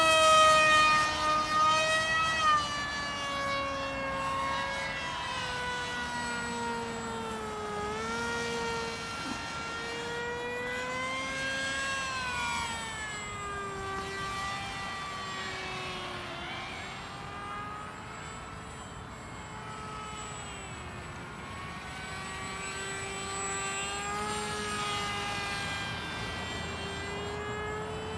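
Brushless 2204 2200kv electric motor and 6x3 pusher propeller of a SonicModell AR. Wing RC flying wing whining in flight, its pitch rising and falling as the throttle and distance change. Loudest in the first couple of seconds, with the pitch dropping, then fainter and steadier.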